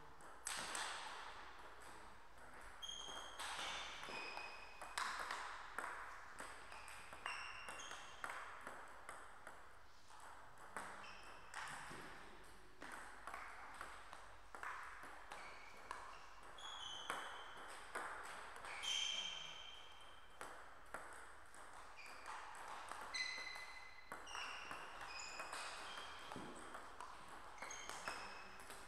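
Table tennis rallies: the ball clicking off the paddles and the table, each hit with a short high ping, in quick irregular runs broken by short pauses between points.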